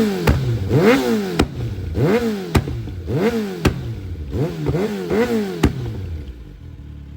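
Kawasaki Z900RS Cafe's inline-four, on a full exhaust system with a pops-and-bangs tune, blipped repeatedly about once a second. Each rev rises and falls with a sharp pop from the exhaust on the decel. It settles to a steady idle near the end.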